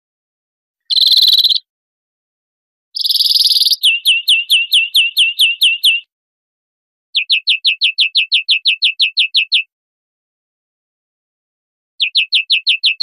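European greenfinch singing. Two long, buzzy, nasal wheezes in the first few seconds lead into rapid trills of short falling notes, about six a second, given in phrases a couple of seconds long with short pauses between them.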